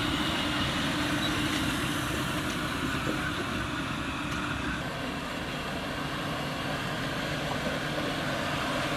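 Truck on the move: steady engine and road noise.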